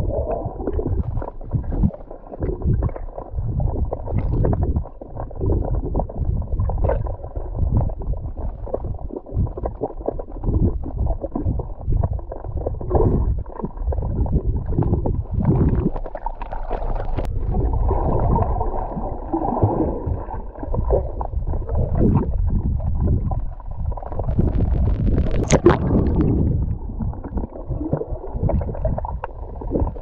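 Muffled underwater rumble and gurgling of water moving around a swimmer's action camera, heard through the camera's waterproof housing, with a brief sharper, brighter burst about 25 seconds in.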